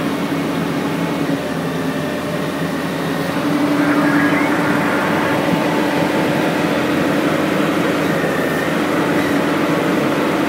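Excavator engine and hydraulics running steadily with a constant hum, a little louder from about three and a half seconds in.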